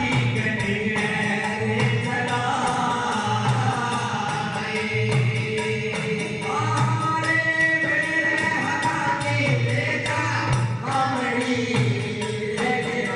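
Devotional folk bhajan music: a melody sung in long held lines over a steady drum beat, with a jingling tambourine-like percussion.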